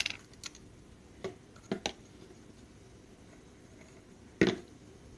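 Light clicks and knocks of plastic containers and a stirring stick handled on a stone countertop: a few small taps in the first two seconds, then one louder knock about four and a half seconds in.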